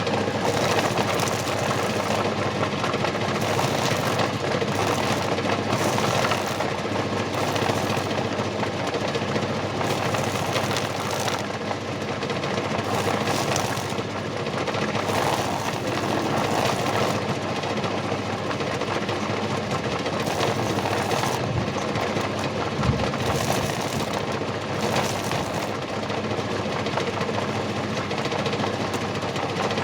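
Homemade PVC lathe driven by a salvaged washing-machine motor, running continuously with a steady mechanical whir; its higher part swells and fades every second or two.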